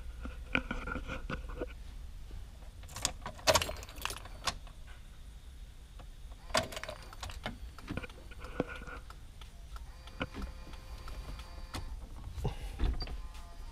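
Key ring jangling in the ignition with scattered light clicks as the key is handled and turned to bring up power to the new head unit.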